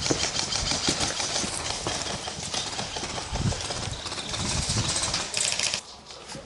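Footsteps with clothing and gear rustling close to the microphone, irregular thuds over a steady hiss, which drops away sharply near the end.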